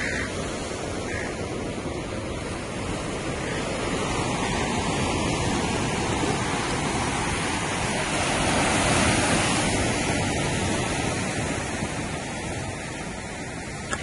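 Ocean surf washing against the shore: a steady rushing noise that swells louder for a moment about nine seconds in.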